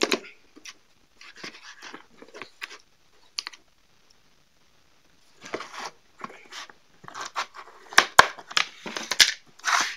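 Hands prying at the snap-on lid of a plastic laundry-capsule tub: irregular plastic creaks, rustles and clicks, with a quiet pause in the middle and the sharpest snaps about eight seconds in as the lid comes open.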